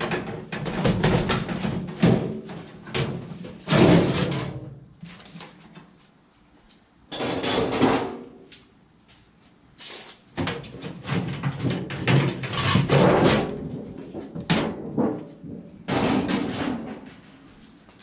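Sheet-metal outer cases of microwave ovens being pulled and slid off their chassis once the screws are out: metal clanking, scraping and rattling in irregular bursts. The loudest clanks come about four and eight seconds in, with a busy stretch in the second half and a short lull between.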